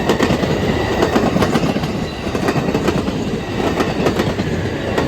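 Capitol Corridor passenger train cars passing close by: a loud, steady rumble of steel wheels on rail, broken by rapid clicks over the rail joints.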